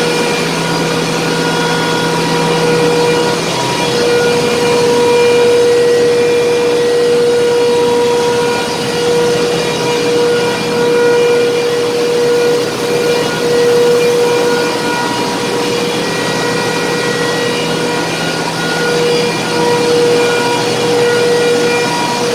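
Loud, steady machinery noise from a running ship's auxiliary boiler unit, including its forced-draft fan and electric fan motor, with a constant tone running through it.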